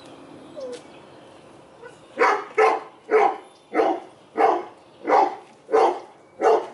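A dog barking repeatedly: eight loud barks in an even rhythm, about one and a half a second, starting about two seconds in.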